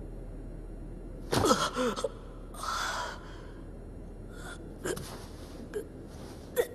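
A person's sharp gasp and strained cry, falling in pitch, about a second in, followed by a heavy breath and then a few short, fainter breaths and small noises.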